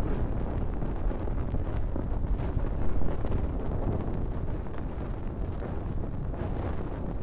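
Fire burning with a steady low rumble and scattered faint crackles.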